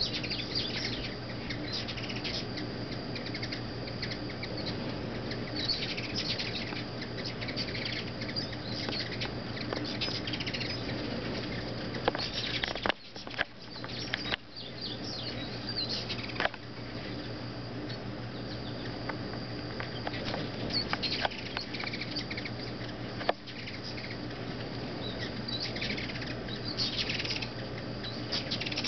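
A crowd of ruby-throated hummingbirds at feeders: a steady hum of many hovering wings, with frequent short high-pitched chirps and squeaks.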